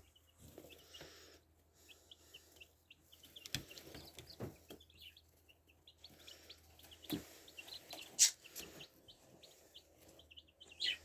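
Baby chicks peeping: a scatter of short, high cheeps, with a few knocks in between.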